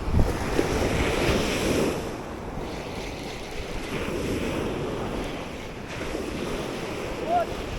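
Ocean surf washing onto the beach, mixed with wind buffeting the microphone.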